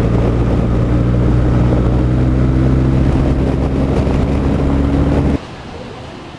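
BMW R1200 GS flat-twin boxer engine running at steady speed under way, with wind rushing over the microphone. The sound cuts off suddenly a little over five seconds in, leaving a much quieter background.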